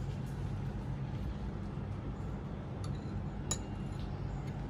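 A steady low hum, with two light metallic clinks a little after three seconds in, the second one louder and ringing briefly.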